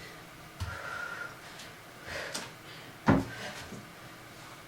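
Feet stepping onto and off a workout box during step-ups and reverse lunges: a few dull thuds, with one sharp, louder thump about three seconds in.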